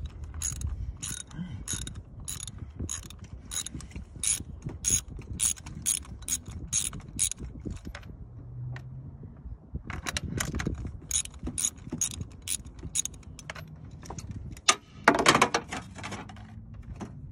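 Hand ratchet wrench on an extension clicking in a steady run of about two to three clicks a second as it turns a spark plug, pausing about eight seconds in and then resuming. A louder clatter of tool metal comes near the end.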